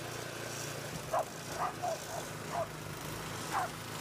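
Two-stage snowblower's engine running steadily, with a dog giving about six short barks over it from about a second in.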